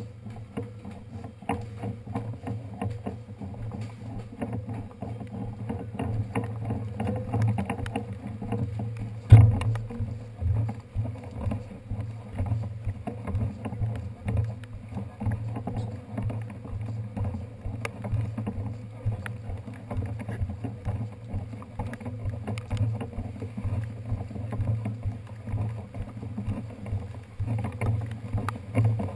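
Muffled, irregular rumbling and rattling of a bicycle being walked, picked up by its handlebar-mounted camera as it jostles over wet pavement, with a single loud knock about nine seconds in.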